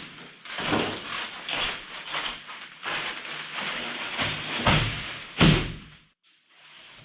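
Insulation boards being handled and set down: irregular rustling and scraping with knocks, and two heavy thumps near the end before it goes quiet.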